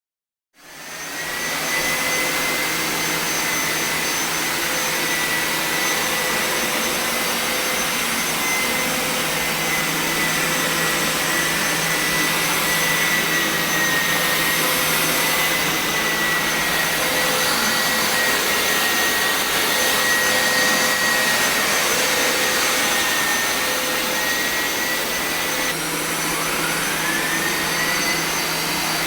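Carpet-washing machine's suction motor running with a loud, steady rush and a high whine. Near the end the whine briefly drops in pitch and climbs back up.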